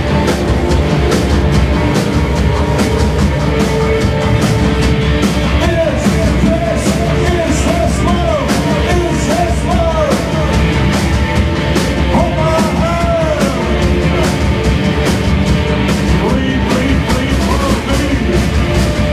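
Post-punk rock band playing loud live: distorted electric guitars, bass, keyboards and a steady driving drum beat, with a male voice singing over it through the middle.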